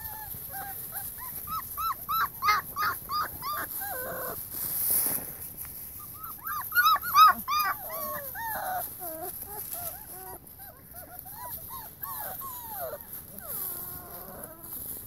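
Akita puppies yipping and whining in quick strings of short high cries, in two loud bursts about two and seven seconds in, then scattered whines.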